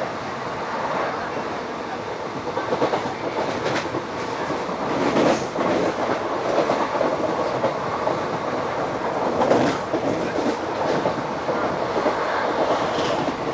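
Passenger coach's wheels rolling on the rails at speed: a steady rumble with bursts of clickety-clack as the wheels clatter over rail joints and points, loudest about a third of the way in and again past the middle.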